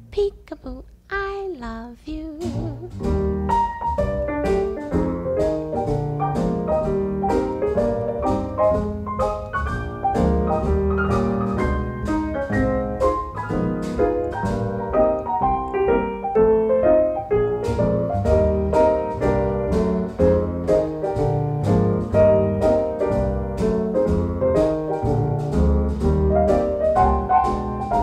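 Background music: a jazz instrumental led by piano over a bass line and a steady beat, after a held sung note fades in the first couple of seconds.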